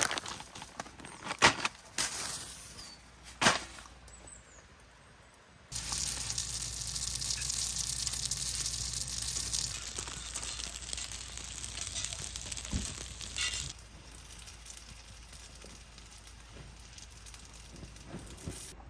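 A few sharp clicks and knocks, then about six seconds in a loud, steady sizzle of food frying in a hot pan starts abruptly. It cuts off about eight seconds later, leaving a fainter hiss.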